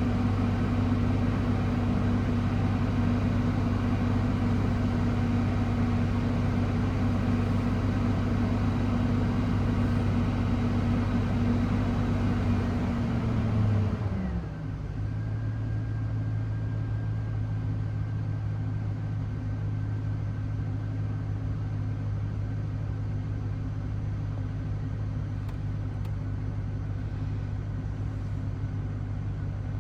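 Car engine idling after a cold start. About fourteen seconds in, the idle speed drops and the running note falls to a lower, slightly quieter steady idle.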